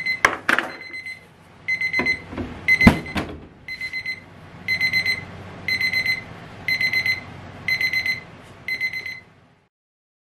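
Electronic timer alarm beeping in short bursts of rapid high beeps, about one burst a second, stopping about nine seconds in. Sharp metal knocks in the first three seconds, the loudest near three seconds in, as aluminium chiffon-cake tube pans are lifted off the oven deck.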